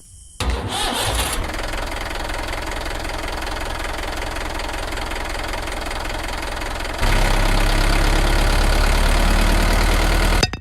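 An engine starts abruptly and runs with a fast knocking beat. About seven seconds in it turns louder and deeper, then cuts off suddenly.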